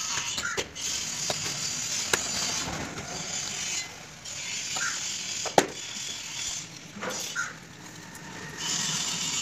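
Hands working a large ceramic wall tile into combed tile adhesive: rubbing on the tile in stretches, with two sharp knocks, the louder one about halfway through.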